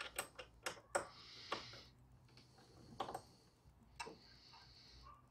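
Light metal clicks and ticks from a hex key on a bolt and a steel bracket being handled against the mower's wheel mount: several quick clicks in the first two seconds, then two more single clicks a second apart, with brief scraping between.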